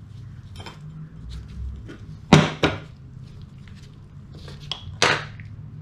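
Knocks and clunks of the Bosch starter's metal housing parts being handled and set down on a metal-topped workbench: two loud knocks a little over two seconds in and another about five seconds in, over a steady low hum.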